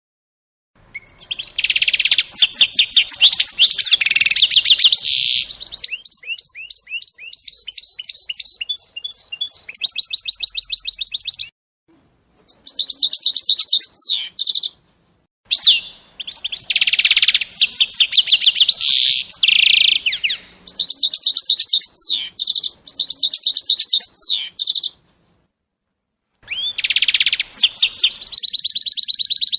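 A small songbird singing loudly: long, fast phrases of rapid high trills and chirps, broken three or four times by sudden short silences.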